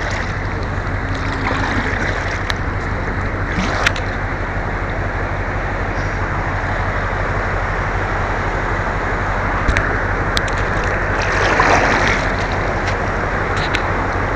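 Rushing, churning whitewater of a container ship's propeller wash around a kayak, with a steady low hum underneath. A few small knocks or splashes stand out.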